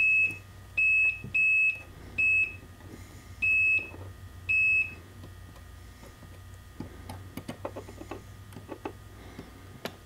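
Digital multimeter's continuity beeper sounding six short, high, steady beeps of uneven length as its probes touch the PowerPole contacts, each beep showing a closed, connected path. Light clicks of the probe tips on the contacts follow in the second half.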